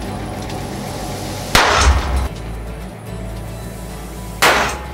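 Two sharp, loud bangs about three seconds apart, each with a short ringing tail: a hand hammer striking red-hot iron on a water-wetted blacksmith's anvil, the water flashing into steam.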